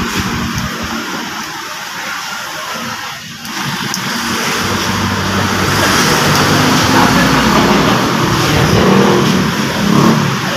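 Steady motor-vehicle noise, an engine running with traffic sound, louder from about four seconds in.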